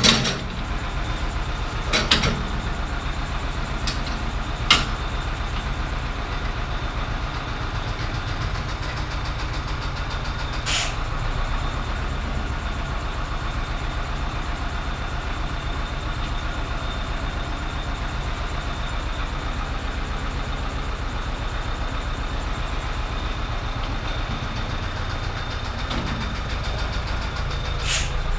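Zetor 7011 tractor's four-cylinder diesel engine running steadily under way, with a few sharp knocks or rattles, the clearest near the start.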